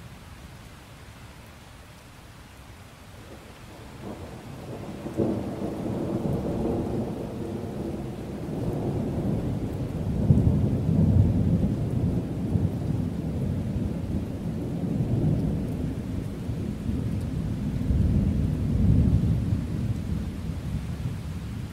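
Steady rain with a long roll of thunder. The thunder builds about four seconds in with a crack, then rumbles on in swells before easing near the end.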